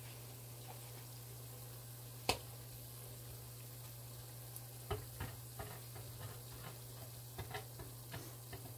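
Batter-coated Oreos deep-frying in hot oil in a Dutch oven: a faint sizzle with irregular small pops and crackles from about five seconds in, over a steady low hum. A single sharp click about two seconds in.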